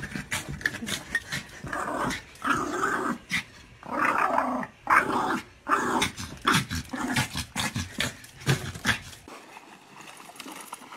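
Small dog growling and barking in a run of short bursts at a clothes iron held toward it; the vocalising stops about nine seconds in.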